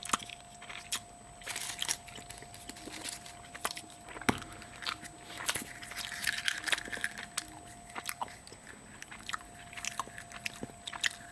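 Scattered clicks, crackles and crunches of a Kinder Surprise egg being opened by hand: chocolate shell breaking and the plastic toy capsule being handled.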